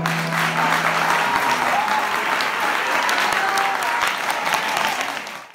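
Audience applauding steadily. The last held low note of the song's accompaniment dies away about a second in, and the sound cuts off suddenly near the end.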